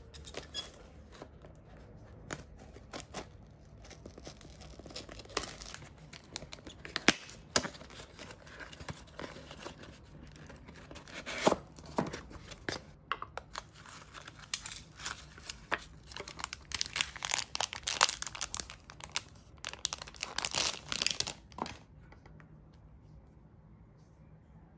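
Packaging being crinkled and torn open by hand: irregular crackling and rustling with sharp snaps, stopping near the end.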